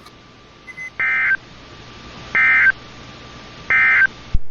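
Three short bursts of EAS digital data tones from a NOAA Weather Radio broadcast, evenly spaced about a second and a half apart: the end-of-message code that closes the alert. A sharp click near the end as the transmission drops out.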